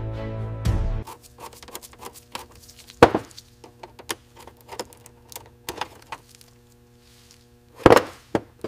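Background music stops about a second in. Then come scattered light clicks and taps of tweezers and small hand tools on a corroded metal aircraft instrument panel, with two louder knocks, one about three seconds in and one near the end.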